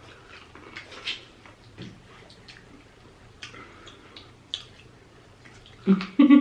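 Close-miked eating sounds: scattered wet mouth smacks and clicks of chewing, then a short, loud vocal sound near the end.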